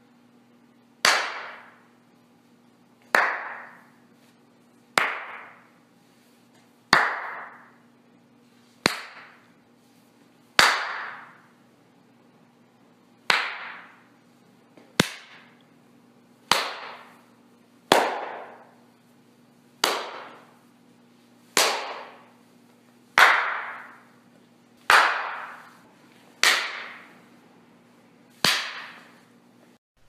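Single hand claps, one about every two seconds, each sharp clap followed by a short echoing tail.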